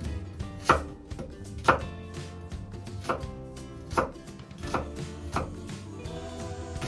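Kitchen knife cutting through an onion and knocking on a wooden cutting board: a slow, uneven series of chops about one a second, the first two the loudest.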